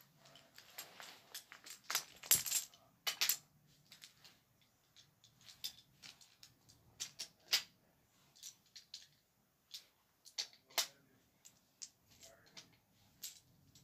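Toy trains clicking together and clacking on a wooden toy railway track as they are handled, coupled and set down, in irregular small knocks, the loudest a few clacks two to three seconds in.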